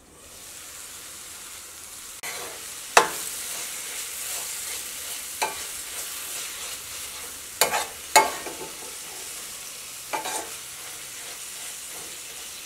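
Tomato and onion masala sizzling in a stainless steel pan as the tomatoes cook down, the sizzle swelling as the lid comes off. A metal spoon scrapes and clinks against the pan about six times while stirring, the loudest clink about 3 seconds in.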